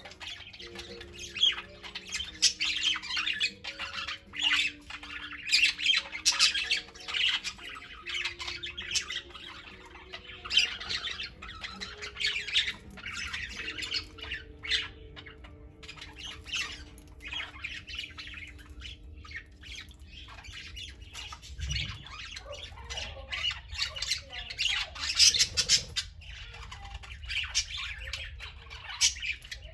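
A flock of budgerigars chattering, a dense stream of short, high calls with frequent louder squawks throughout.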